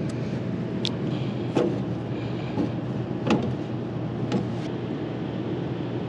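A steady low mechanical hum, with a few sharp clicks and knocks of black iron gas pipe fittings being handled and wiped. The loudest knock comes about three seconds in.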